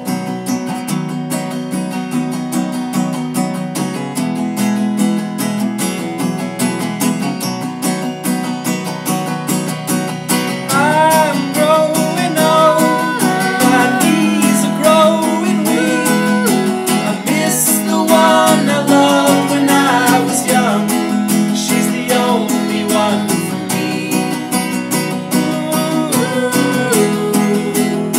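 Instrumental break in an acoustic folk-pop song: acoustic guitar strumming steadily, joined about eleven seconds in by a sliding, wavering melody line, after which the music grows louder.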